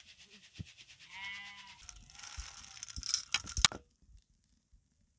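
A goat bleats once, briefly, about a second in, with a fainter call a moment later. Just past the middle comes a quick cluster of sharp clicks, the loudest sound here.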